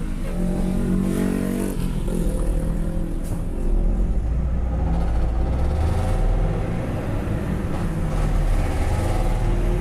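Engine with a straight-through exhaust and no muffler, roaring loud as it runs, its low rumble swelling about halfway through.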